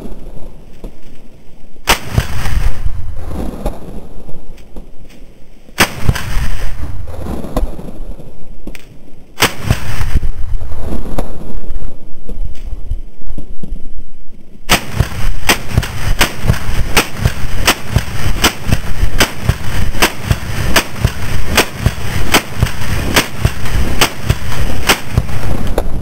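AR-15 rifle with a 16-inch barrel firing: four single shots spaced a few seconds apart, then a fast string of semi-automatic shots, about two to three a second, through the last eleven seconds.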